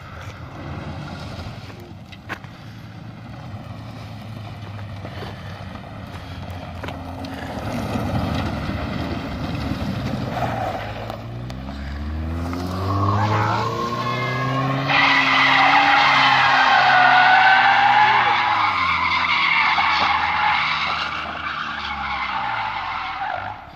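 A car drifting on asphalt: engine revving up and down, then a long tyre squeal from about halfway through, the loudest part, which stops just before the end.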